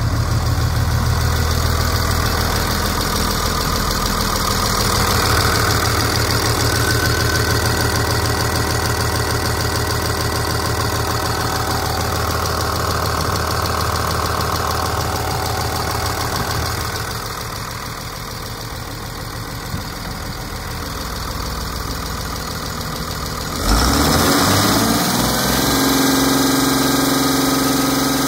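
Cummins ISB 5.9 inline-six turbodiesel running steadily at idle. About 24 s in it gets suddenly louder and rises in pitch, then holds steady at a higher note.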